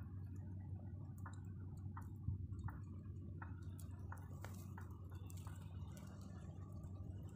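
Smouldering straw fire crackling faintly as fish roast over it on sticks: irregular small snaps and pops, one louder a little over two seconds in, over a steady low hum.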